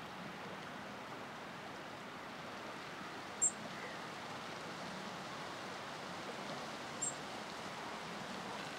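Steady outdoor wind and water noise, with a small bird's short high chirp twice, about three and a half seconds apart.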